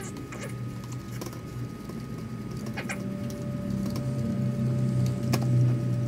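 Plastic scraping and rattling as a cigarette-lighter socket is threaded into a hole in a black plastic dash panel, with a few light clicks. Under it runs a low steady hum that grows louder toward the end.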